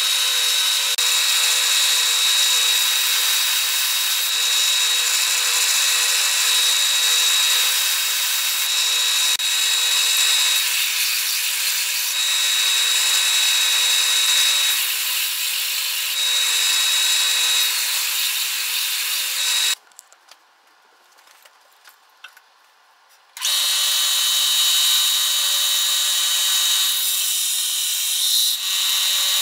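Bench belt sander running and grinding a bevel into a leaf-spring steel knife blade, a steady abrasive rasp with a high whine that comes and goes. About twenty seconds in the sound cuts off abruptly for a few seconds, then resumes.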